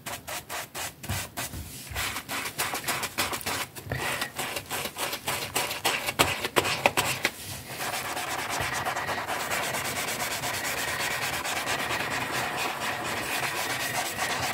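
Soapy sponge scrubbing a wet paper banknote against a sink basin: quick back-and-forth rubbing strokes that merge into a steady, continuous rub about halfway through.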